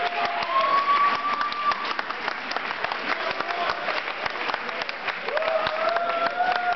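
Audience applauding, many hands clapping, with two long cheering calls that rise and then hold over it, one at the start and one near the end.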